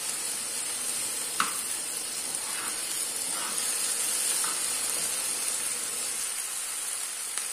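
Rice sizzling as it fries in hot oil in a frying pan, stirred with a metal spoon, with a sharp clink of the spoon on the pan about a second and a half in and a few softer scrapes after it.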